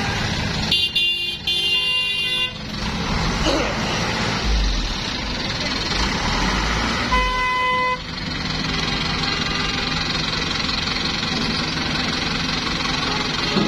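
Vehicle horns honking twice over the running engines of trucks and vans driving off a ferry: a long blast about a second in and a shorter one near eight seconds. A deep engine rumble swells in between.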